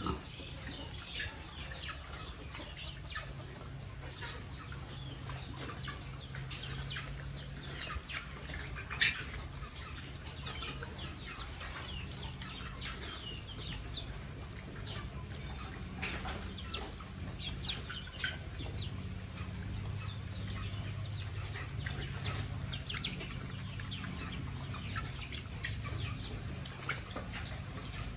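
Many birds chirping and squawking in short, quick calls over a low steady hum, with a single sharp knock about nine seconds in.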